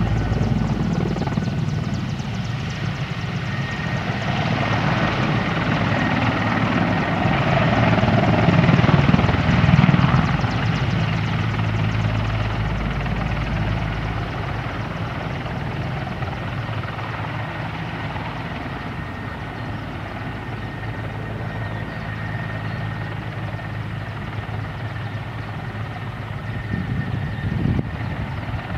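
Mil Mi-24 helicopter flying a display pass: a steady rotor beat with a thin turbine whine above it, loudest about eight to ten seconds in, then easing off as it moves away.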